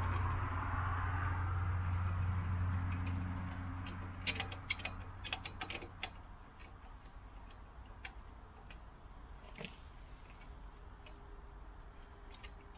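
A low steady hum fades out over the first few seconds, then light metallic clicks and clinks from the tractor's three-point hitch hardware being handled, a cluster of them about four to six seconds in and scattered single ticks after.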